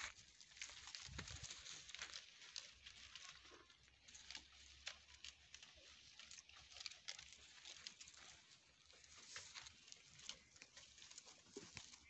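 Faint rustling and crackling of dry leaves as goat kids step about and browse at leafy branches: many small irregular clicks over a soft hiss.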